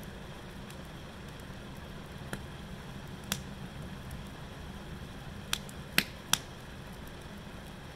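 Wood fire burning in a metal chiminea-style fire pit, popping sharply five times, with the three loudest pops coming close together in the second half, over a steady low rumble.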